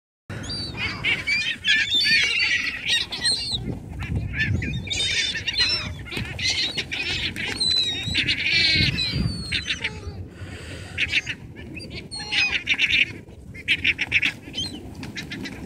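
A flock of ring-billed and herring gulls calling over one another as they feed on the ground, with wings flapping as birds take off and land. The calls come in dense, overlapping runs of repeated high cries and thin out near the end.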